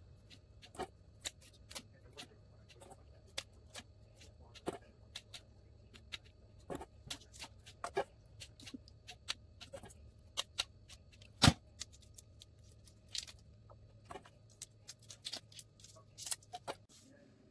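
Kitchen scissors snipping raw shrimp, cutting off the pointed head spikes, eyes and legs: irregular sharp clicks and crunches through the shells. The shells crackle as they are peeled off by hand. A faint steady hum runs underneath.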